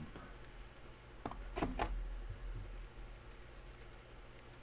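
Quiet handling noise: a few faint clicks and rustles, the most noticeable about a second and a half in.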